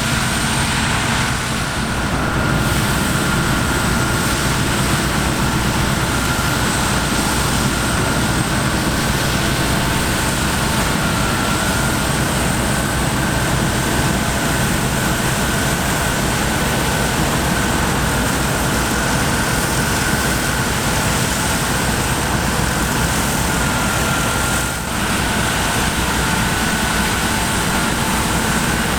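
Heavy harvest machinery running steadily: a deep diesel drone with a steady high whine above it.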